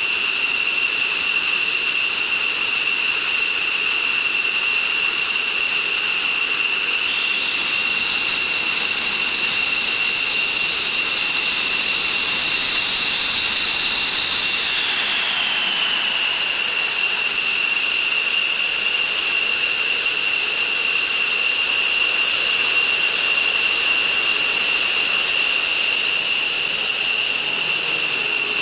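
Twin turbofan engines of an F-15 Eagle fighter jet running at low power on the ground, a steady high-pitched whine made of several tones. About halfway through, one of the tones slides down in pitch.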